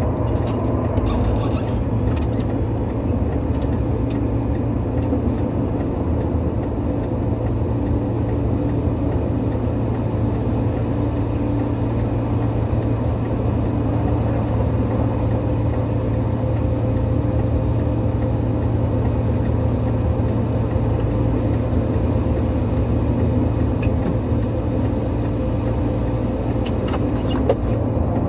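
A large vehicle's engine running steadily close by: a loud, even low drone with a constant hum that neither rises nor falls.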